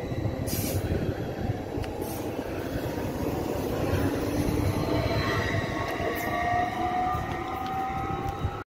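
Stadler FLIRT electric multiple unit pulling out past the platform: a steady low rumble of wheels on rail, with a motor whine rising in pitch as it accelerates over the last few seconds. The sound cuts off suddenly near the end.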